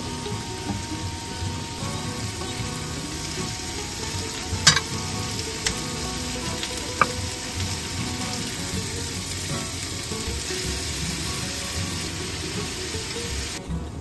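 Bean sprouts, tofu and tomato sizzling steadily in a frying pan on an induction hob. A few sharp clinks come about five and seven seconds in.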